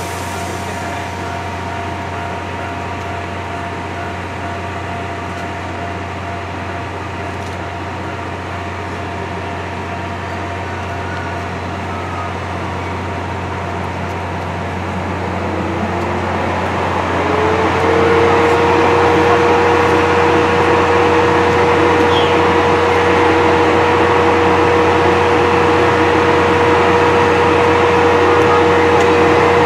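C57 180 steam locomotive moving slowly tender-first at close range, with a steady hiss of steam that grows louder past the halfway point. A little past halfway a tone slides up and then holds steady to the end.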